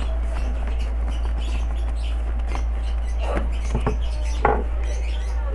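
Tarpaulin rustling and a plastic fruit crate being handled, with three short knocks in the second half, over a steady low hum.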